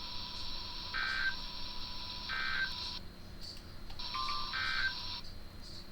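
Emergency Alert System SAME data bursts on NOAA Weather Radio: three short, buzzy digital chirps about a second and a half apart, the end-of-message code that closes the tornado warning, over receiver hiss.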